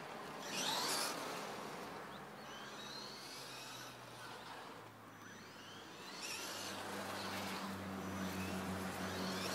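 Electric motor of an HPI E-Firestorm Flux RC stadium truck whining as it speeds past close by about half a second in, then its high whine rising and falling as it drives and turns further off on asphalt. A low steady hum grows in the second half.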